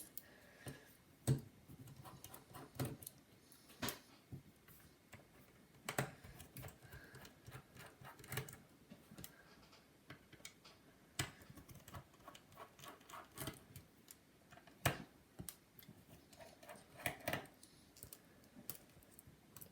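Scattered small clicks and taps of a precision screwdriver and its bits being handled and changed, with a few sharper knocks.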